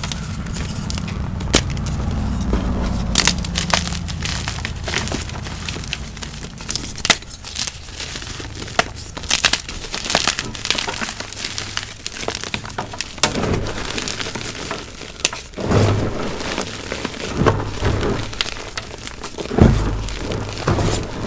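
Blocks of gym chalk being crushed and broken by hand: a stream of crisp cracks and crunches, with a few heavier, deeper crunches in the second half.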